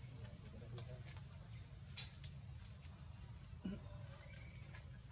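Steady high-pitched insect chorus of crickets or cicadas, over a low rumble, with two brief knocks, one about two seconds in and a louder one near four seconds.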